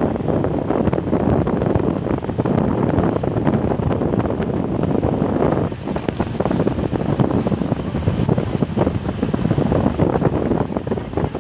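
Wind buffeting the microphone: a steady, rough noise with no horn tones, dipping briefly about six seconds in.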